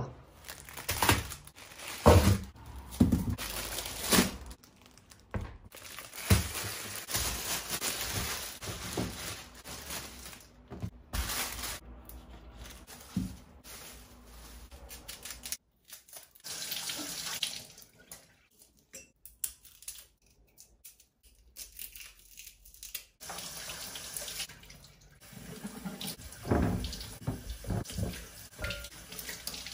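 Kitchen tap running into a sink with water splashing, cutting off and starting again several times, with a few knocks in the first seconds.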